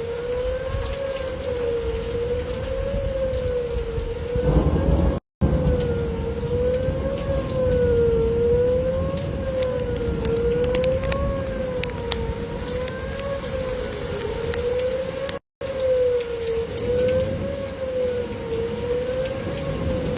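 Whelen electronic outdoor warning sirens sounding the Attack signal: a steady wavering tone rising and falling about once every two seconds, with rain falling. A louder low rumble comes about four seconds in, and the sound breaks off for a split second twice.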